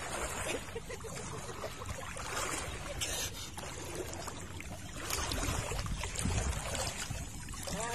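Shallow seawater sloshing and splashing, with a sharper splash about three seconds in.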